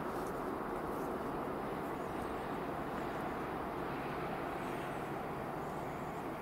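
Steady outdoor background noise, an even rushing hiss with no shot or other sharp sound.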